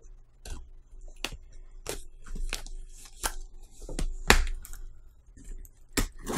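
Cardboard package being torn open by hand: a string of sharp, irregular rips and crackles of tape and cardboard, the loudest about four seconds in.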